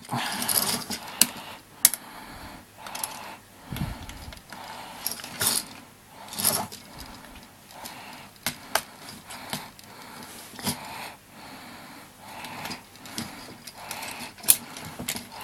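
Hard plastic toy parts of a Legendary Megazord figure clicking and knocking as the figure is handled and a sword is fitted onto it: irregular sharp clicks with quieter rustling between.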